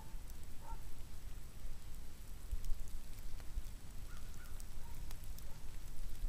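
Woodland ambience: a steady low rumble of wind on the microphone with faint scattered ticks and two faint short high notes.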